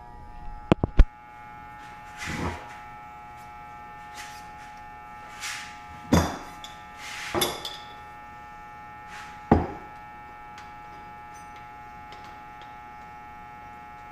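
Hand tools and a motorcycle fork tube being handled at a workbench: a few sharp metal knocks and clunks, two of them close together about a second in, with short scuffing sounds in between, all over a steady electrical hum.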